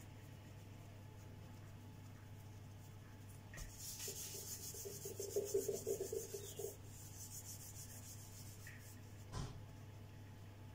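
A ball of bread dough being rolled and rubbed under the hands on a granite countertop, a soft grainy rubbing for about three seconds in the middle, then a single light knock near the end, over a low steady hum.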